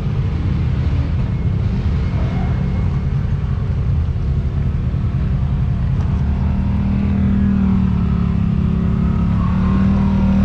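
Side-by-side UTV engines running under load as the machines crawl over a rock pile and up a dirt slope. About six seconds in, the engine note rises and holds, then drops right at the end.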